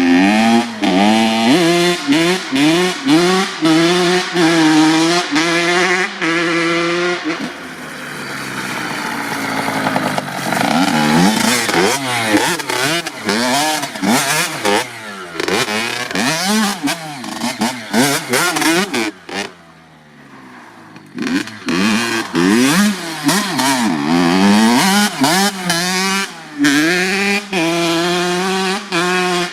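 Honda CR85 two-stroke dirt bike's 85cc single-cylinder engine being ridden and revved. Its pitch repeatedly climbs and falls in throttle blips, the 'braaps'. It drops to a low level for about two seconds around twenty seconds in, then picks up again.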